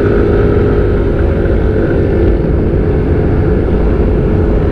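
Motor scooter cruising at steady speed. Its engine hum is half-buried under loud wind rumble on the microphone.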